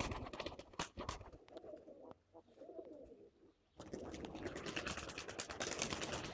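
Domestic pigeons cooing, with sharp wing claps near the start as a pigeon takes off. From about four seconds in a loud steady rushing noise with many small clicks covers them.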